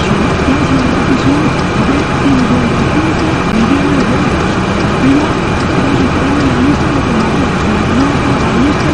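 Steady, loud background noise, like traffic, with a voice talking faintly underneath, its words unclear.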